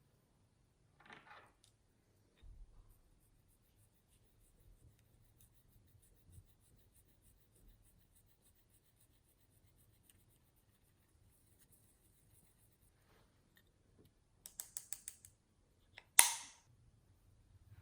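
Quiet hand-handling sounds: a brief rustle, then near the end a quick run of about six sharp clicks followed by one loud sharp crack that fades within half a second.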